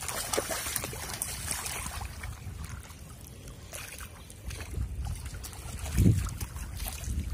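Shallow pond water splashing and trickling as a child wades through it and handles fish in a floating metal pot, with a louder low thump about six seconds in.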